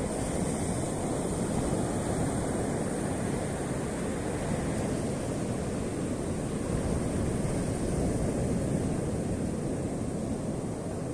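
Black Sea surf washing steadily onto the shore, with wind rumbling on the microphone.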